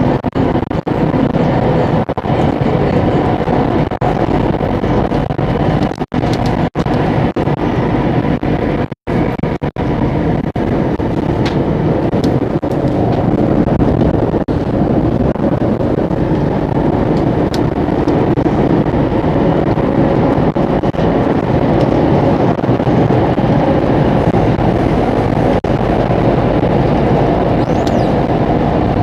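Singapore Circle Line MRT train running through a tunnel, heard from inside the car by the doors: a steady, loud rumble of wheels on rail with a faint motor hum. The sound drops out briefly a few times in the first ten seconds.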